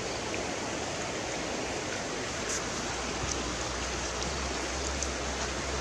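Steady rushing of a flowing stream, with a low rumble coming in about halfway through.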